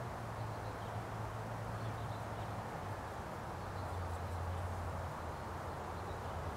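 Outdoor background ambience: a steady low hum under an even hiss, with nothing standing out.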